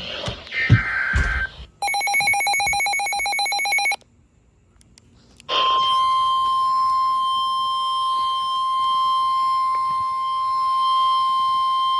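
NOAA Weather Radio alert audio: a brief two-tone data burst that ends the previous alert, then a buzzy, pulsed electronic tone for about two seconds. After a second and a half of silence comes the steady 1050 Hz warning alarm tone, which announces the next warning and holds on.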